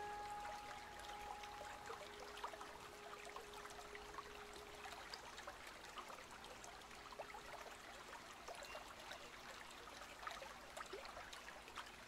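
Faint field recording of water trickling, with many small irregular drips and ticks. A held musical note fades out over the first few seconds.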